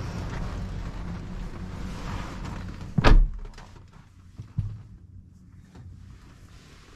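BMW X5 car door slammed shut about three seconds in, with a single heavy thunk. The outside noise of wind and street rumble cuts to a much quieter car cabin, where a couple of small clicks follow.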